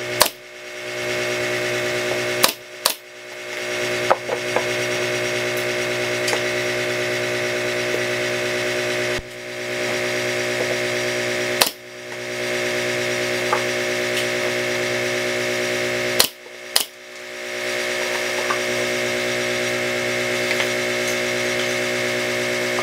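Pneumatic brad nailer firing into MDF panel joints: about seven sharp shots, some in quick pairs, over a steady machine hum.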